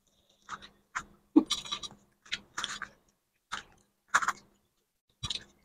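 Eating sounds from a meal of rice and mutton curry: about eight short, irregular wet smacks and clicks spread over a few seconds.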